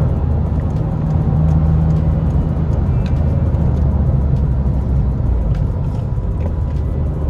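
Škoda Octavia II's 1.9 TDI diesel engine and tyre and road noise heard from inside the cabin, running steadily while cruising.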